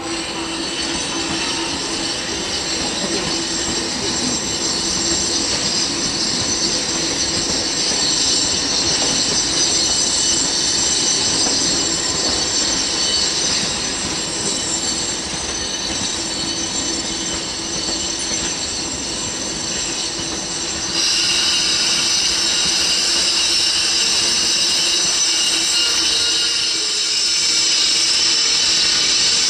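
Electric multiple-unit passenger train rolling slowly over the station tracks, its wheels squealing on the rails in a high squeal of several steady tones over a low steady hum. About twenty seconds in, the sound steps up louder with a different squeal.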